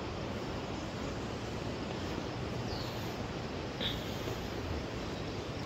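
Steady outdoor rushing noise, even and without any pitch, with two brief high chirps near the middle.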